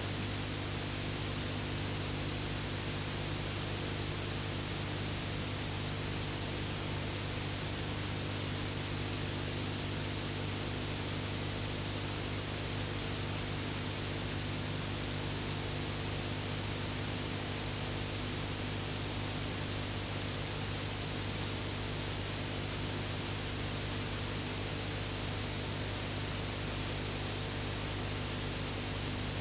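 Steady hiss with a low, unchanging hum beneath it and no other sound. This is the noise floor of an old film-to-video transfer with no soundtrack.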